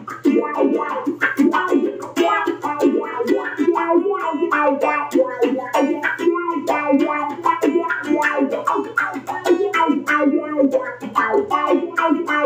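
Electric guitar played through the Joyo Vision pedal's auto-wah effect: a steady run of quickly picked notes, their tone sweeping with the wah.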